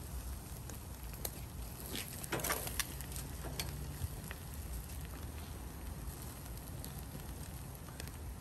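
Meat grilling over charcoal, with dripping fat catching fire: scattered crackles and pops, a cluster of them about two to three seconds in, over a low steady rumble.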